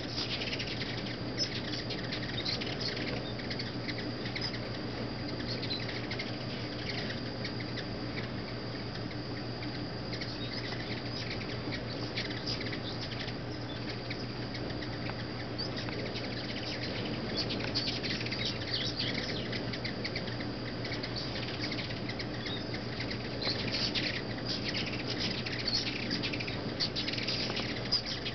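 Ruby-throated hummingbirds swarming feeders: a constant whir of many wings with frequent short, high chips and twitters.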